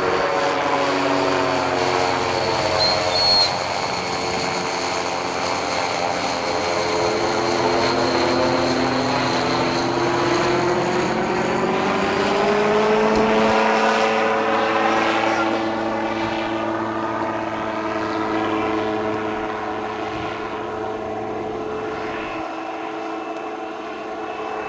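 Microlight trike's automobile-conversion engine and propeller droning steadily as the aircraft moves past, with shifting pitch and swirling tone; loudest about halfway through, then slowly fading.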